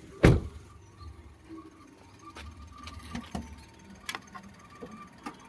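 A sharp thump just after the start, then scattered light clicks over a Maruti Suzuki S-Presso's engine running with a faint, repeated high chirp from the front of the engine. The owner blames the chirp on a failing water pump, not the belt.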